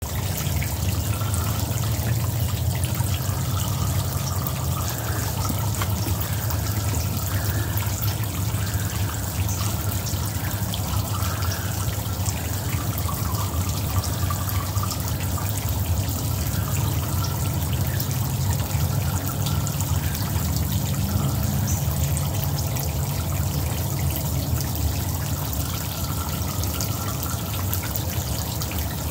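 Water trickling and splashing steadily down a small artificial rock waterfall of concrete and wooden steps into a shallow concrete basin, over a steady low rumble.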